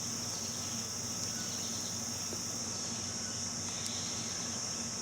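Steady high-pitched chirring of insects such as crickets, unbroken throughout, over a low steady hum, with a faint tick or two.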